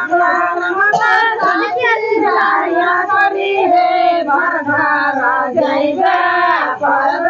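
A group of girls and women singing a Karma puja devotional song together.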